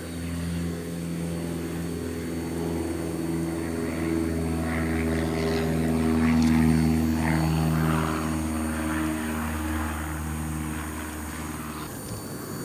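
Propeller airplane flying over, a steady engine drone that swells to its loudest around the middle and fades away near the end.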